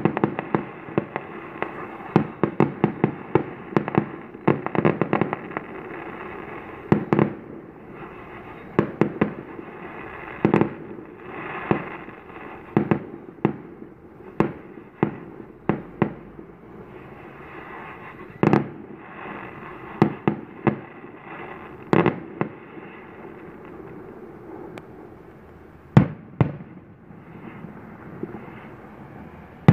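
Fireworks going off: a rapid string of bangs for the first several seconds, then single bangs every second or two, with a few louder ones later on.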